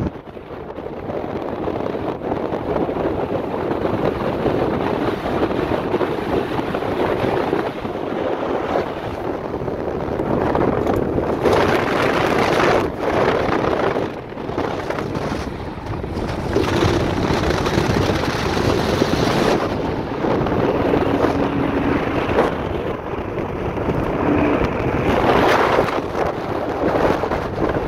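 Wind rushing over the microphone and road noise from a moving car, with a Lamborghini Huracán's V10 running close by. The sound swells louder several times.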